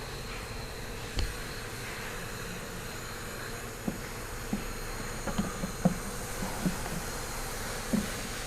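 A steady buzzing hum, with scattered light knocks and clicks, most of them bunched together a little past halfway.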